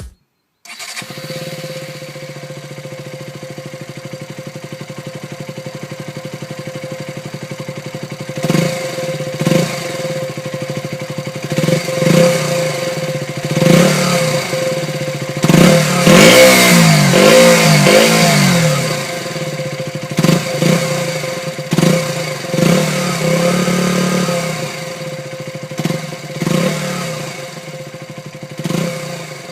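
KTM Duke 125's single-cylinder four-stroke engine starting about a second in and idling steadily. From about eight seconds in it is given repeated short throttle blips, with a longer run of revving up and down in the middle.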